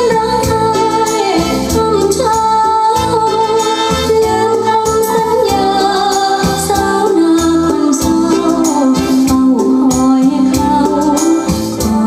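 Recorded music with a regular bass beat and a melody line, played back through a pair of home-built loudspeakers.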